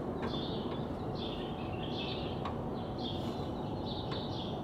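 Small birds chirping in short repeated phrases over a steady low background rumble, with a few faint clicks.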